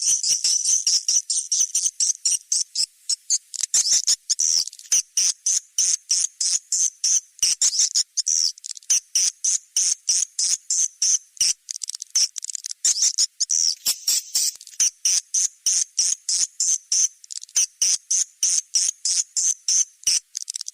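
Swiftlet lure call: a recording of swiftlet twittering, a rapid unbroken string of short, high, sharp chirps about four or five a second. It is the kind of call track played in a swiftlet house to draw swiftlets in to roost and nest.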